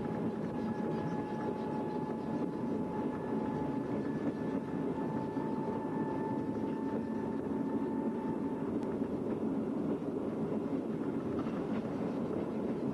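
Works drezine (motorised rail trolley) running along the track, a steady engine and wheel rumble. A high steady whine over it fades out about two-thirds of the way through.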